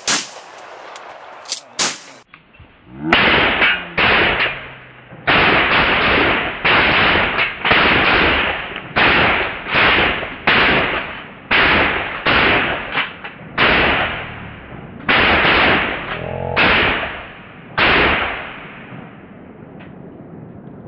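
A run of shotgun blasts from several shooters fired at Canada geese, each a sudden loud crack with a short decaying tail. A few sharp shots come in the first two seconds, then after a brief lull about fifteen more follow at an uneven pace until near the end.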